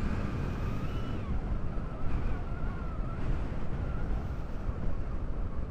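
Wind rushing over a helmet-mounted microphone while riding a Honda CB150R, over the low, steady running of its engine and road noise.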